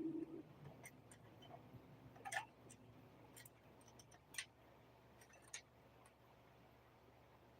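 Near silence broken by a handful of faint, sharp clicks and ticks, the loudest about two seconds in: small plastic parts of a PS5 console being handled and pried during disassembly.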